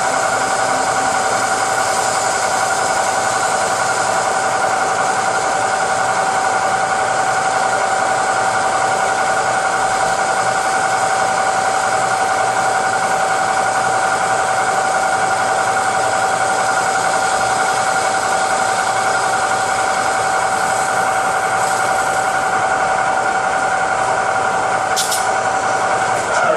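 Metal lathe diamond-cutting an alloy wheel: a steady, high-pitched whine over a hiss that holds without change and cuts off abruptly at the end.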